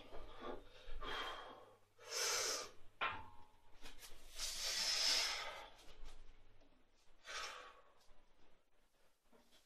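A weightlifter taking a series of loud, forceful breaths while bracing under a heavy loaded barbell for a back squat, the longest breath about four to six seconds in. A single sharp click comes about three seconds in.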